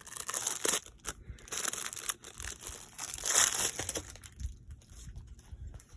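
Crinkling and rustling of a diamond painting kit's rolled canvas and its plastic packaging being handled and unrolled, loudest about three and a half seconds in.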